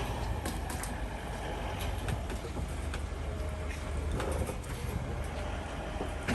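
A 2022 Lexus LX running steadily with a low hum, with small scattered ticks. A single sharp knock, like a car door shutting, lands right at the end.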